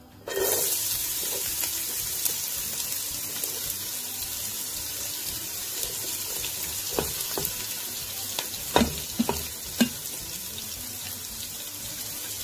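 Diced onion dropped into hot oil in a frying pan, sizzling steadily; the sizzle starts suddenly about a third of a second in. A few short knocks sound in the second half.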